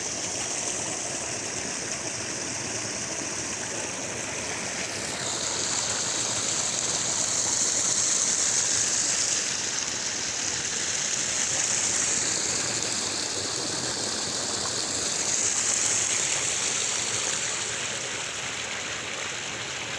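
Water rushing steadily in a stream, growing louder and softer several times.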